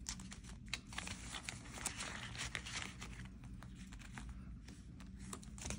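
Paper banknotes and cash envelopes being handled: faint soft rustling and crinkling with scattered light clicks and taps.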